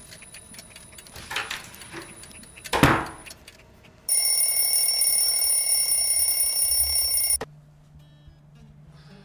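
An alarm clock rings with a loud, shrill, steady tone for about three seconds, then cuts off abruptly. Two short swishes come before it.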